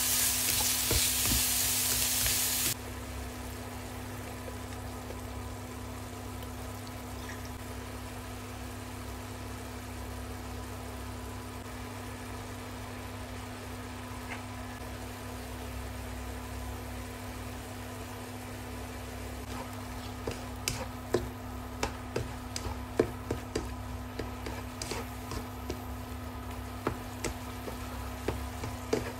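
Minced pork and diced cucumber sizzling loudly in a pan while being stirred, the sizzle cutting off abruptly about three seconds in and leaving a quiet steady simmer with a low hum. From about two-thirds of the way through, a slotted spatula clicks and scrapes against the pan again and again as the mixture is stirred.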